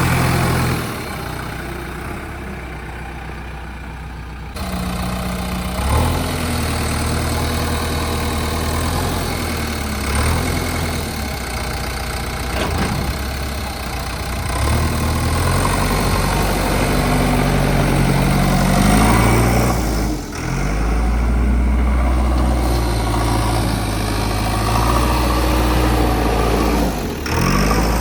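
JCB 3DX backhoe loader's diesel engine running, alternating between idle and revving. The pitch rises at times, and the sound changes abruptly several times.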